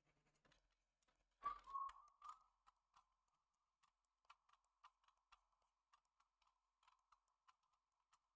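Near silence with faint, scattered clicks of a computer keyboard, and a brief louder sound about a second and a half in.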